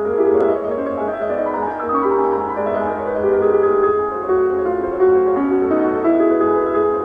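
Instrumental piano music playing a melody.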